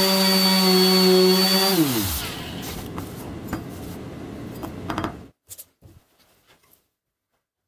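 Random orbital sander running steadily on a steel hatchet head, a hum with a high whine. About two seconds in it is switched off and its pitch falls as the motor winds down. A rough rubbing noise follows, then it cuts off to near silence about five seconds in.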